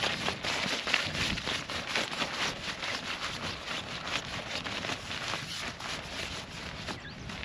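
Rustling and crinkling of a Coleman Touring Dome LX tent's rain fly fabric as it is handled and rolled back by hand, a string of quick irregular scrapes.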